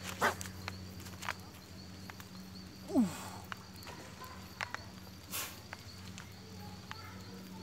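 A tambaqui strikes a surface bait on the pond with a splash. Close by there are a few sharp ticks and swishes. The loudest sound is a short falling squeak with a hiss about three seconds in, and a sharp burst of noise comes about five seconds in, over a low steady hum.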